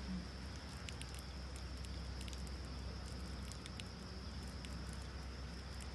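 Wood campfire crackling, with scattered irregular pops and snaps over a steady high-pitched drone.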